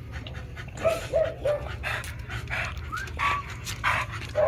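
American bully dogs sniffing and panting in short repeated breaths, with several brief high whimpers.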